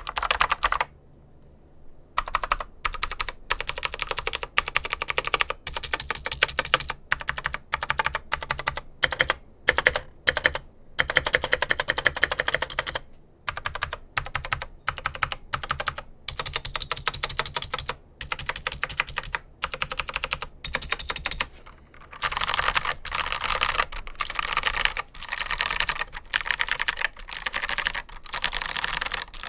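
Typing on a mechanical keyboard with clicky switches: fast, dense key clicks with brief pauses about a second in and again about 13 s in. The clicking turns louder and brighter about 22 s in.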